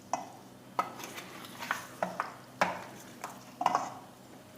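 A spoon stirring pieces of chicken in a cooking pot, knocking and scraping against the pot about seven times at an uneven pace.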